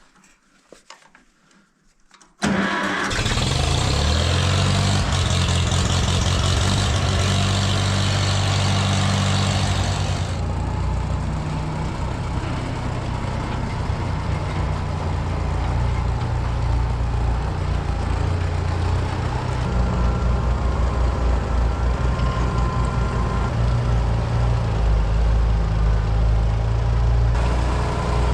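Gasoline tractor engine on a cold start: it catches suddenly about two and a half seconds in and keeps running. About ten seconds in, its higher-pitched clatter drops away and it settles into a steadier run.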